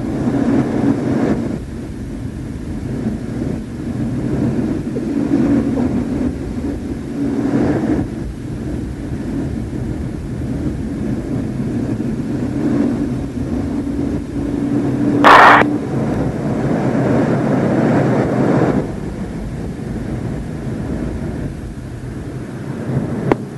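Steady cockpit noise of a MiG-29 twin-engine jet fighter in flight, engine and airflow together, with a faint hum that comes and goes. A short sharp noise about fifteen seconds in.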